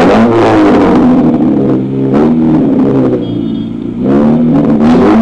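Mitsubishi Cedia with a modified muffler and exhaust, its engine revved hard three times: a sharp rev at the start, a second around two seconds in, and a third climbing near the end, falling back between revs.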